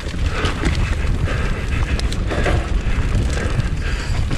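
Bird Aeris AM9 29er enduro mountain bike descending a rough dirt trail: a steady rumble of tyres over roots and ground, with scattered knocks and rattles from the bike and wind buffeting the chin-mounted camera.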